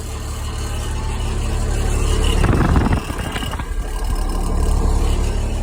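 International DT466 inline-six diesel in a 1978 International Loadstar 1850 truck, running at a very low hand-set throttle. It idles roughly: its level swells and dips. A brief rushing noise comes about two and a half seconds in.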